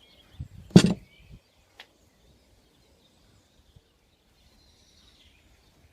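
A single sharp knock about a second in, then a faint tick, with faint bird chirping in the background.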